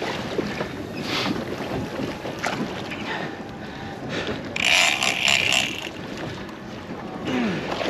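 Wind buffeting the microphone over water sloshing against a boat's hull, with a louder rush of noise lasting about a second midway.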